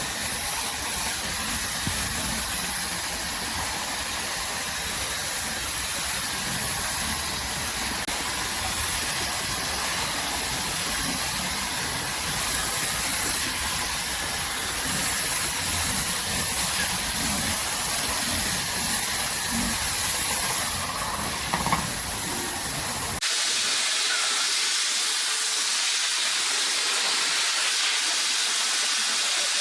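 Steady, loud hissing noise with a low rumble underneath; about 23 seconds in the rumble drops away abruptly, leaving only the hiss.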